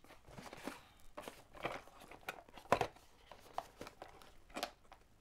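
A small cardboard box being handled and opened by hand: scraping and rustling of cardboard, with a series of short knocks and clicks, the sharpest about three seconds in.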